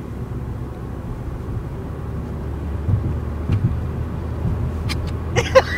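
Steady low rumble of road and engine noise inside a moving car's cabin, with a few faint clicks. Near the end, a person's voice breaks in with short, sharp sounds.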